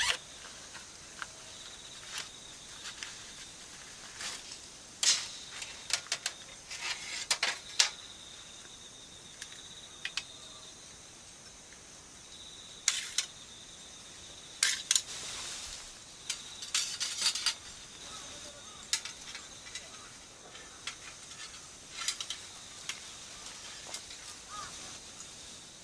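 Irregular sharp clicks and clatters, bunched in short runs, over a faint steady high insect drone.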